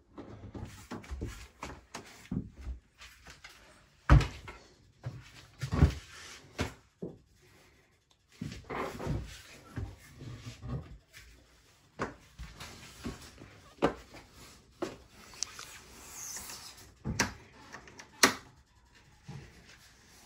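Irregular knocks and thumps with rustling between them, from someone moving through a boat's cabin, in a small echoing space. The loudest thump comes about four seconds in, with another about two seconds later.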